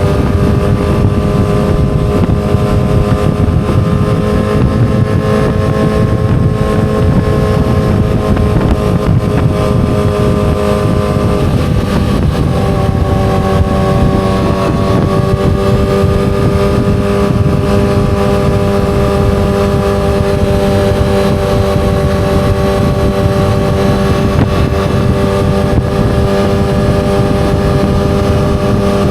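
Yamaha R6 sport bike's 599 cc inline-four engine running at a steady, held pitch. The pitch shifts slightly about twelve seconds in.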